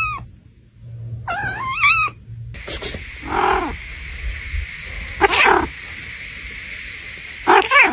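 Cats meowing: a wavering meow about a second in, then several more short calls spread through the rest, with a steady hiss behind the later ones.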